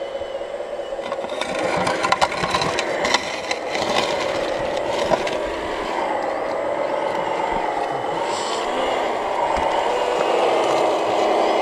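Remote-controlled Komatsu wheel loader model working a dirt pile: a whining motor sound that wavers up and down in pitch. Crunching and scraping of gravel and soil comes from about a second and a half to five seconds in, as the bucket digs in.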